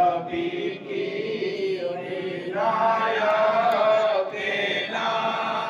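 A man's voice chanting a melodic devotional recitation into a microphone, drawing out long notes that bend up and down in pitch.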